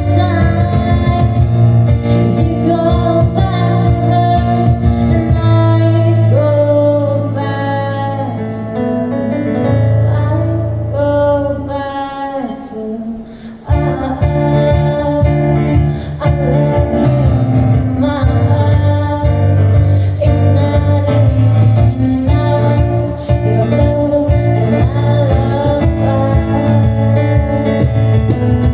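A woman singing live into a microphone with keyboard accompaniment. The music thins out and quietens briefly about halfway through, then comes back in full.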